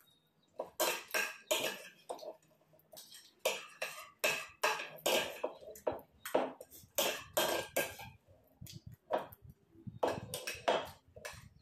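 Metal spoons clinking and scraping on ceramic plates as two people eat chatpate, a spicy puffed-rice snack: a rapid, irregular run of short, sharp sounds, a few a second.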